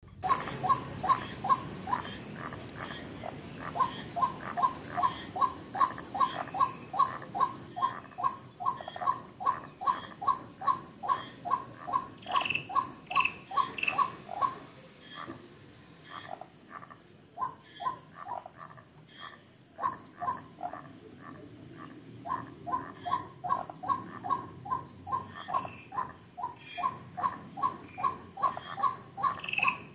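White-breasted waterhen calling: a long, monotonous run of repeated two-part notes, about two to three a second. The run thins out for a few seconds about halfway through, then picks up again.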